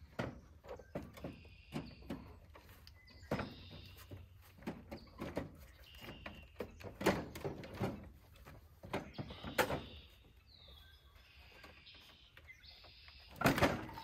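Irregular knocks, clunks and scrapes as a riding-mower battery is pushed and wrestled into a tight battery compartment under the hood, with a heavy thunk near the end.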